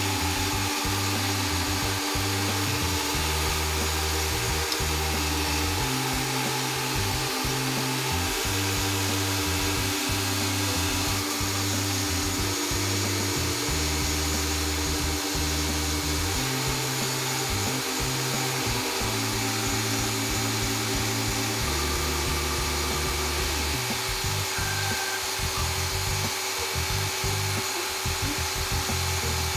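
Continuous abrasive grinding or sanding of a steel razor blade, a steady rasping noise, under background music whose bass notes change every second or two.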